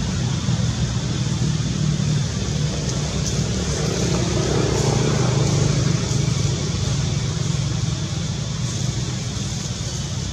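Steady low rumble with an even hiss of outdoor background noise, with no distinct events.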